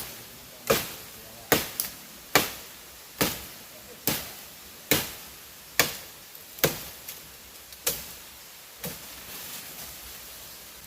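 Sticks being chopped for a fire: about a dozen sharp chopping strikes, roughly one a second, the last one weaker about nine seconds in, after which they stop.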